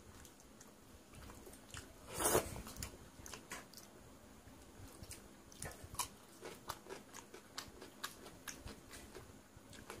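Close-up eating sounds: a man chewing mouthfuls of watery panta bhat (soaked rice) eaten by hand, with one louder noisy mouthful about two seconds in and many small wet clicks and smacks of chewing after it.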